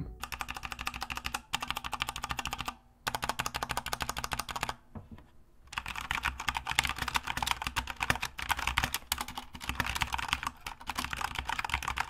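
Typing on a Corsair K70 RGB Rapidfire mechanical keyboard with Cherry MX Speed linear switches, which have no tactile bump or click: a fast, steady stream of keystrokes. The typing stops briefly just before three seconds in and for about a second near five seconds in.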